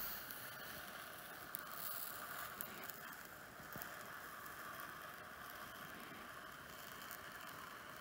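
Faint steady hiss with a few soft ticks as a hot-wire foam cutter pen melts its way through polystyrene foam.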